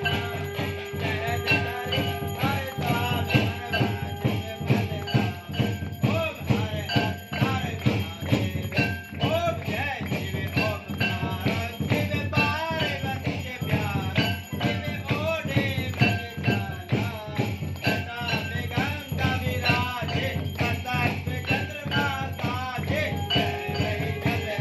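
Hindu devotional aarti music for Shiva, with bells jingling in a quick steady rhythm over wavering melodic lines.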